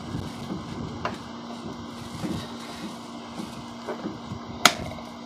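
Hand primer plunger on a Duramax fuel filter head being pumped with the inlet blocked by a finger, giving soft irregular pumping sounds and a sharp click near the end. It makes a weird noise that marks the primer as faulty, which the owner takes for worn O-rings inside the primer button.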